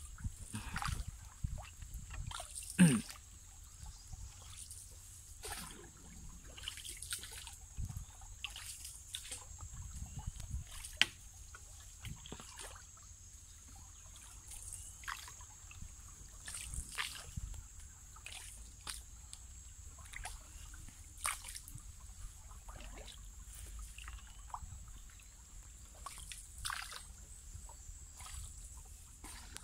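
Hand paddle dipping and pulling through still canal water as a small wooden boat is paddled along, with irregular splashes, sloshing and trickling drips from the blade.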